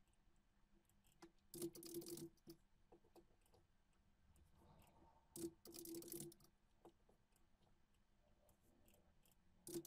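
Faint computer mouse clicks, each followed by a short scratchy rustle, three times about four seconds apart, with near silence between.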